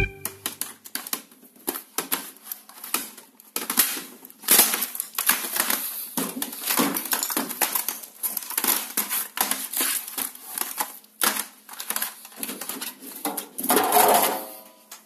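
Irregular clicks and knocks of a Toshiba laptop being handled: keys pressed and the plastic case knocked. Near the end a louder scraping rattle as it goes into a washing machine's drum.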